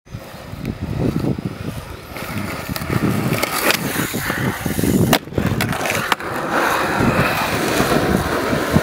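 Skateboard wheels rolling on asphalt, a continuous rough rumble, broken by several sharp clacks of the board striking the pavement, the clearest pair about five seconds in.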